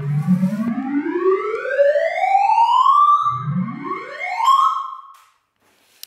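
Computer-synthesized sorting-algorithm tones, each pitch set by the value of the item being read, run together into a long, smoothly rising glide over about three seconds, then a second, quicker rise. They die away about a second before the end. The rise is the sweep through the finished, sorted array from lowest to highest value.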